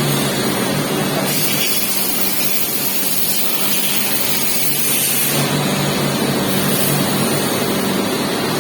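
CNC vertical machining centre running during a drilling job with the coolant switched off: a steady loud noise with a low hum. The hiss in the middle range eases for a few seconds partway through, then returns.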